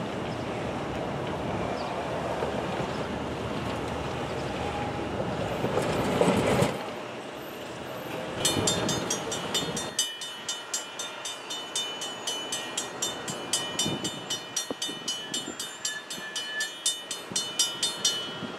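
Railroad grade-crossing warning bell ringing in steady, even strokes about twice a second, starting about eight seconds in as the crossing signals activate for an approaching train. Before it, a steady rumbling noise.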